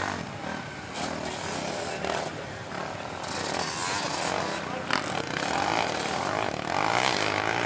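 Several racing ATVs, quads and a three-wheeler, revving and buzzing as they race on a dirt motocross track, their engine pitch rising and falling with the throttle.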